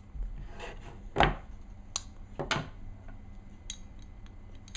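Glock pistol being field stripped by hand: a few sharp clicks and knocks of the slide and parts, the loudest a little over a second in, with rubbing between them.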